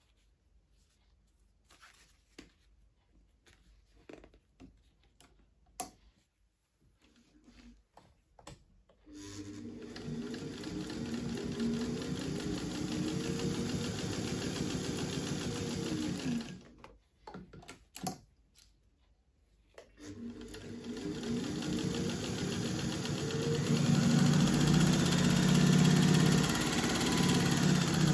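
Faint handling clicks and rustles as fabric is placed under the presser foot, then a freshly serviced Singer 201K electric sewing machine stitching through a layered fabric sample. It runs for about seven seconds, stops briefly, then runs again, speeding up and growing louder near the end.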